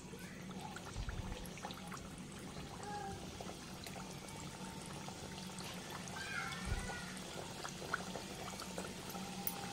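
Mutton samosas deep-frying in hot oil in a kadai over a low flame: a steady low sizzle with light crackling. A brief louder fizz near the end as another samosa is lowered into the oil, and a faint wavering call about six seconds in.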